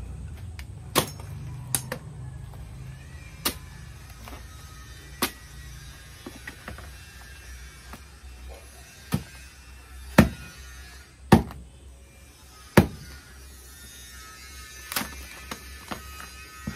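Machete chopping dry coconut palm frond stalks: about a dozen sharp, irregular blows, the loudest a few seconds past the middle.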